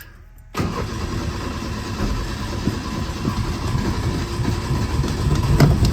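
1989 Ford Mustang Fox Body engine starting about half a second in and running, growing a little louder. It is the first start after years of sitting.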